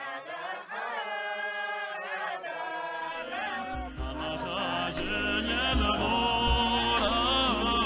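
Several voices singing a song together in unison. About four seconds in, a low instrumental backing with a few deep beats joins the singing.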